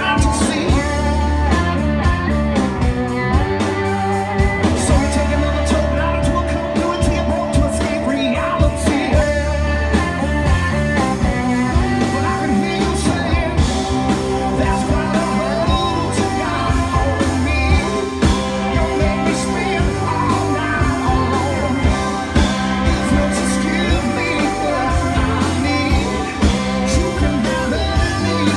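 Live blues-rock band playing loud: distorted electric guitars, bass guitar and a drum kit with busy cymbals, and a singing voice over it.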